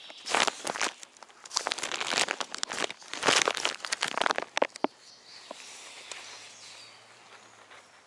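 Loud, close rustling and crinkling in irregular bursts as the ground-level action camera is handled and moved on the forest floor. It stops about five seconds in, leaving only faint birdsong.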